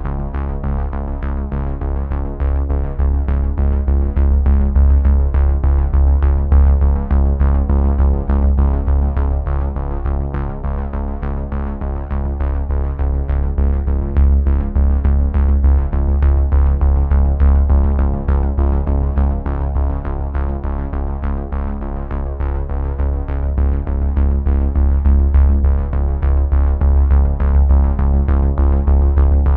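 Background electronic music: synthesizer notes over a heavy bass and a steady drum-machine beat.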